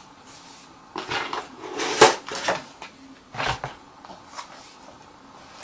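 Cardboard headphone packaging being handled, with several short rustles and scrapes, loudest about two seconds in.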